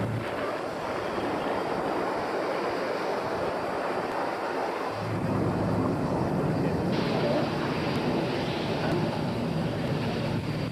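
Piston-engined WWII fighter aircraft droning overhead, with wind rumbling on the microphone. The low engine hum fades in the first half and comes back stronger about halfway through as an aircraft comes nearer.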